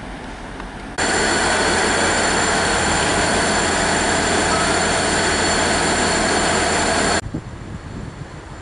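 Class 159 diesel multiple unit's Cummins diesel engines running steadily alongside the platform, with a thin, steady high-pitched whine on top. The sound starts abruptly about a second in and cuts off abruptly near the end, leaving quieter station background.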